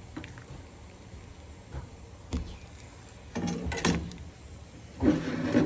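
Short clicks and clattering as a metal ladle is handled over a ceramic coffee cup: a sharp click, then two brief rattling clatters.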